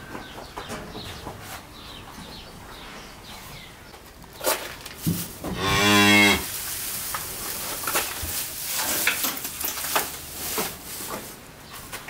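A cow moos once, a short low call about six seconds in. Scattered knocks and clicks sound around it.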